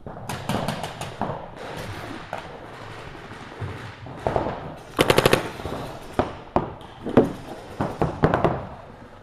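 Paintball markers firing rapid strings of shots, about a dozen a second, with scattered single shots between; the loudest string comes about five seconds in.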